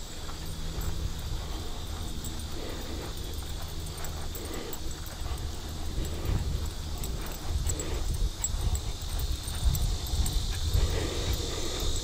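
Footsteps of a person walking a dirt woodland trail, landing as soft thuds about every two seconds, under a low uneven rumble. A steady high insect trill runs behind.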